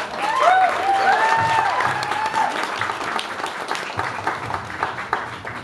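Audience clapping and cheering, with whoops and shouts in the first couple of seconds; the clapping gradually dies down.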